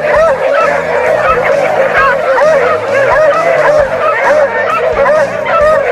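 A pack of beagles baying together, many overlapping rising-and-falling cries, over background music with a steady bass line.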